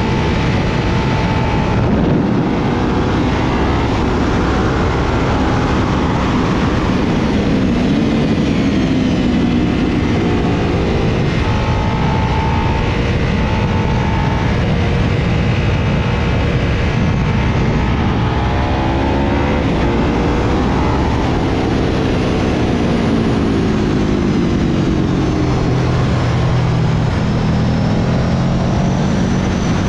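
Sport motorcycle engine running hard, its revs climbing and dropping several times, under a constant rush of wind on the microphone.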